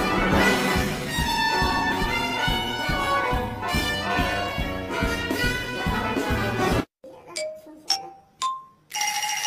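Upbeat brass-band music with a steady beat that cuts off suddenly about seven seconds in, followed by a few short, high dings.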